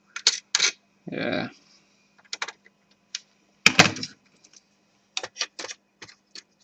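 Irregular sharp clicks and taps of a screwdriver and plastic parts being handled on an opened-up Toshiba Satellite C660D laptop, the loudest about four seconds in.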